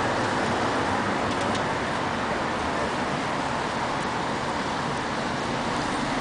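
Steady city street traffic noise: an even wash of passing-car sound with no single vehicle standing out.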